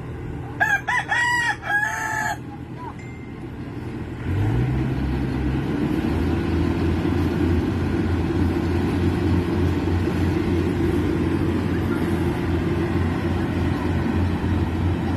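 A rooster crows once near the start. About four seconds in, the rice harvester's engine revs up and then runs steadily and loudly with an even pulsing.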